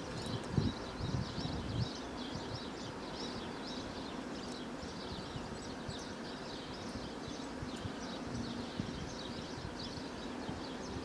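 Birds chirping steadily, a dense stream of rapid short high calls. A few low thumps come in the first couple of seconds.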